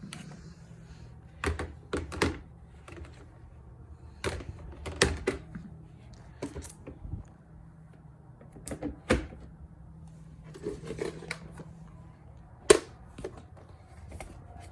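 Irregular knocks, clicks and clatters of household objects and toys being picked up and set down while tidying a room, the sharpest knock near the end, over a faint steady low hum.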